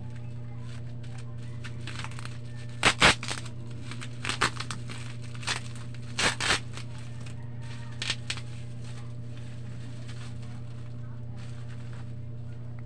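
Plastic packaging crinkling and crackling in short handling sounds as a camera is unwrapped by hand, loudest twice about three seconds in and again around six seconds, with smaller crackles in between and a last one about eight seconds in. A steady low hum runs underneath.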